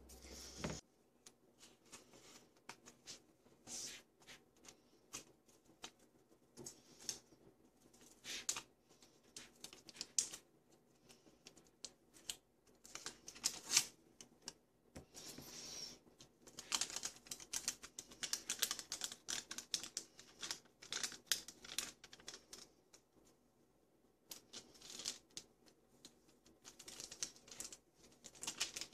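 Hands handling a large photo print and its backing sheet on a laminator table: irregular crinkling, rustling and light ticking of paper and plastic sheeting, busiest in the second half.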